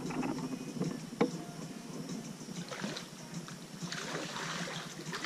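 Kayak paddling: water splashing and dripping off the paddle, with a few short, sharp knocks, about a second in and near three seconds.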